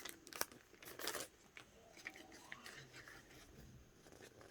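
Faint rustling and crinkling of plastic photocard packaging being handled, with a few sharp clicks in the first second and quieter rustles after.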